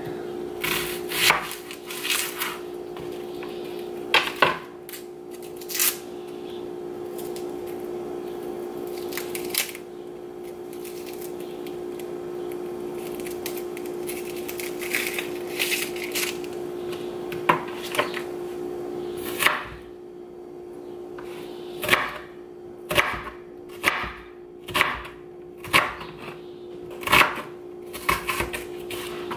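Chef's knife cutting an onion on a plastic cutting board: scattered sharp knocks of the blade on the board, then a run of about eight chops roughly a second apart near the end. A steady hum runs underneath.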